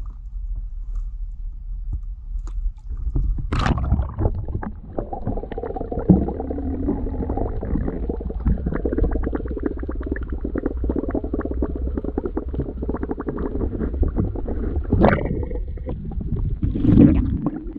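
A camera plunges into the sea with a splash about three and a half seconds in. It then records muffled underwater sound: a dull low rumble thick with fine crackling ticks. Two more splashes come near the end as it breaks the surface.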